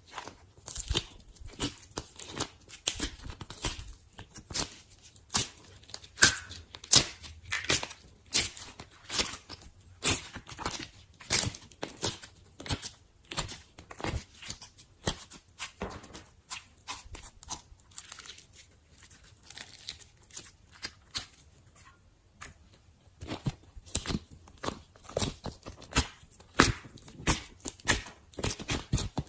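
Slime being poked, squeezed and stretched, making a run of irregular wet clicks and crackles, several a second, with a quieter stretch about two-thirds of the way through.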